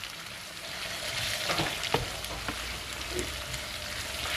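Sliced onions and bell peppers sizzling steadily in a frying pan as a wooden spatula stirs them, with a few sharp knocks and scrapes of the spatula against the pan about a second and a half to two and a half seconds in.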